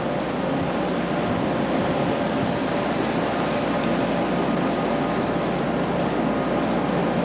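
Sea water washing and splashing steadily along a cargo ship's steel hull, over the constant drone of the ship's engine.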